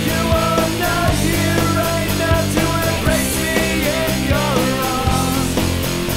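Rock music with a steady drum beat and a melody line gliding between notes.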